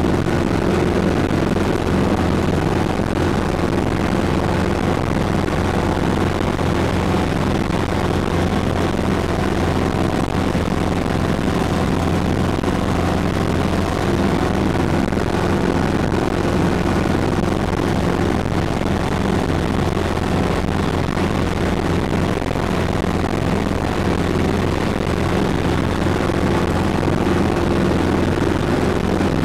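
Cabin noise of a Sikorsky S-300CBi helicopter in cruise flight: its four-cylinder Lycoming piston engine and rotor blades running steadily, loud and even, with the sound sitting mostly in low tones.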